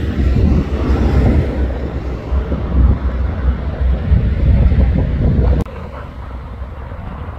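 Articulated tanker truck driving past on the highway, a heavy low rumble of engine and tyres mixed with wind buffeting the microphone. A little over five seconds in the sound cuts abruptly to a quieter, steady rumble.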